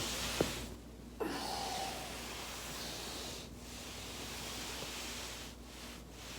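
A back joint cracking once with a single sharp pop about half a second in, then, after a short gap, a steady soft rustling hiss.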